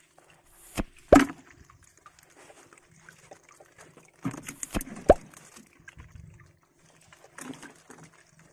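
A few sharp knocks and clatters from a rod-framed crab net trap being handled, two near one second in and a cluster around four to five seconds in.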